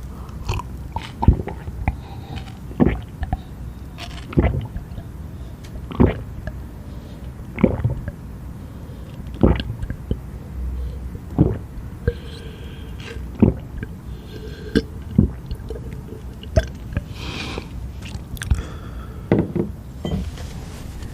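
Eating sounds from a mouthful of eel and spicy noodles: chewing and mouth smacks, with a sharp bite or smack about every one and a half to two seconds.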